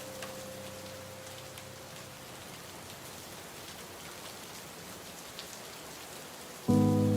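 Steady rain, an even hiss with scattered faint drop ticks, under a held musical chord that fades away in the first couple of seconds. Near the end a loud new chord of sustained tones comes in suddenly.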